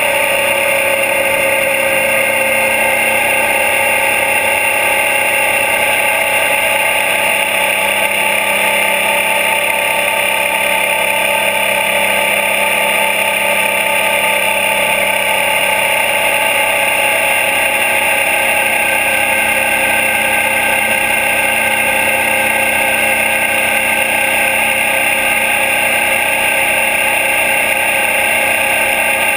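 Suzuki DL650 V-Strom's V-twin engine running at a steady cruise, picked up by a camera mounted on its engine guard. The pitch holds nearly constant throughout, with no gear changes or revving.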